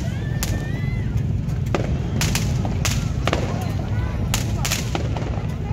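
New Year's fireworks going off: about a dozen sharp bangs at uneven intervals, over a steady low rumble.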